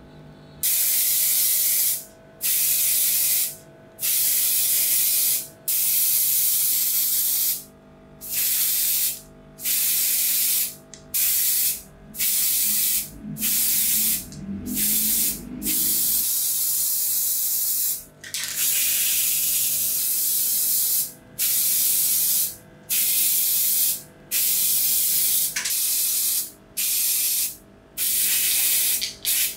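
Paint being sprayed onto the pincer handles in many short hissing bursts of a second or two each, starting and stopping sharply with brief pauses between.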